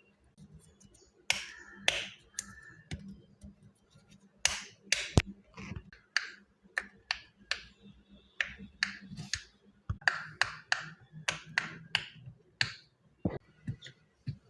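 Fidget toys being handled, giving an irregular run of sharp clicks and snaps, about one or two a second.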